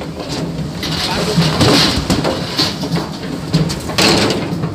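Cattle hooves knocking irregularly on a slatted livestock ramp as the animals walk down it, over a steady background din, with louder clattering bursts about two seconds in and again near the end.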